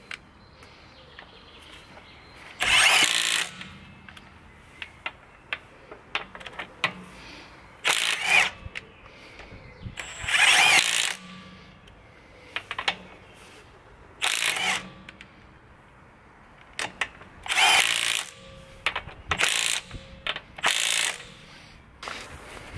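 Milwaukee M12 Fuel stubby 1/2-inch cordless impact wrench hammering on a car's wheel lug nuts in about seven short bursts, the longest lasting about a second, with light clicks between them.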